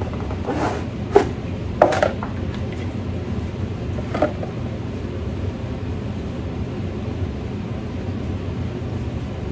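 Air conditioner running with a steady low hum, with a few short handling sounds as a cardboard gift box and a cloth dust bag are unpacked, about one to two seconds in and again around four seconds.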